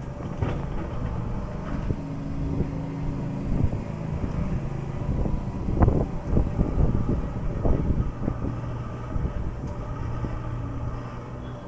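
JCB excavator's diesel engine running steadily while digging, with a run of knocks and clanks, the loudest about six seconds in.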